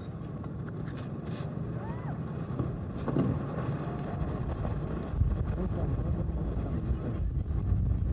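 Steady low rumble of wind buffeting the microphone and water rushing past a sailing yacht's hull, growing louder about five seconds in.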